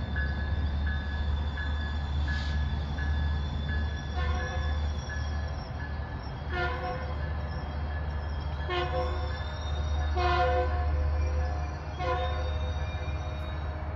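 Approaching train sounding its horn in a series of blasts, the last one the longest, over a low rumble. A grade-crossing bell rings quickly and evenly during the first few seconds.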